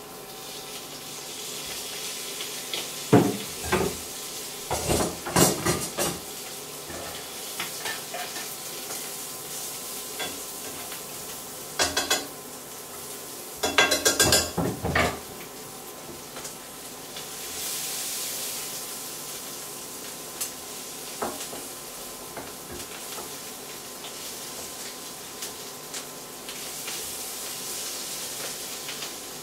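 Merguez sausages and white beans sizzling in an iron frying pan, with bursts of clatter and scraping against the pan as the food is moved: a few seconds in, again at about twelve seconds and in a longer cluster around fourteen to fifteen seconds.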